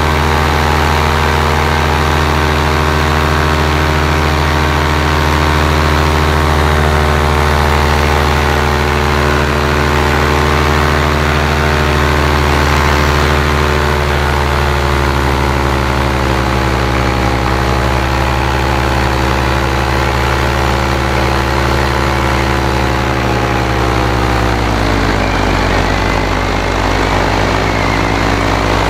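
Paramotor's two-stroke engine and propeller running steadily in flight. About halfway through the pitch starts to sink slowly, then drops more clearly near the end as the engine revs come down.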